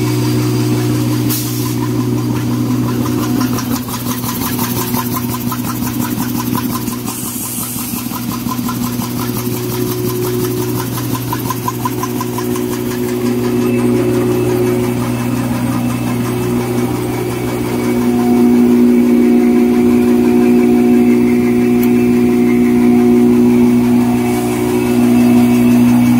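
Automatic five-lane N-fold hand towel paper machine running: a steady mechanical hum with a fast, even rhythmic ticking from its rolls. It gets louder about three quarters of the way through.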